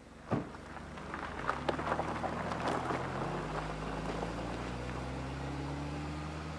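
A sedan pulling away from a gravel road shoulder: a thump just after the start, then tyres crackling over gravel and the engine running, its pitch rising gently as it drives off.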